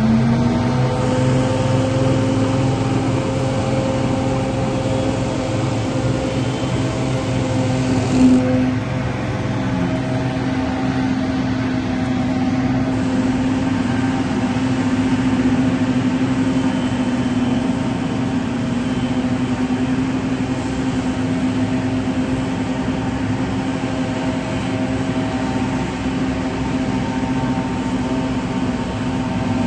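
Small petrol engines of leaf-clearing equipment, a ride-on mower with a grass-catcher and leaf blowers, running at working speed. One revs up right at the start and then holds a steady drone, with a brief louder swell about eight seconds in.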